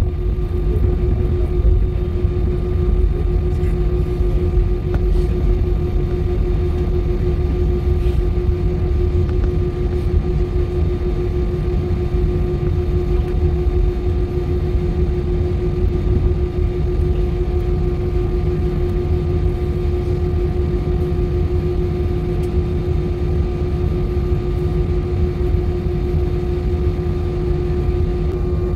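Jet airliner engines running at taxi power, heard from inside the cabin: a steady low rumble with one clear, unchanging hum on top as the plane rolls along the taxiway.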